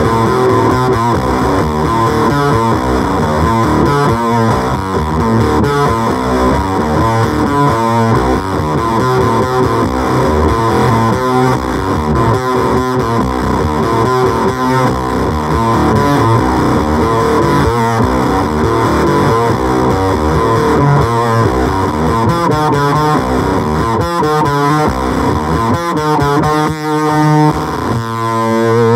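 Electric guitar played through an LOE Sounds Superfuzz fuzz pedal: a steady run of distorted, fuzzy notes, with a held note near the end.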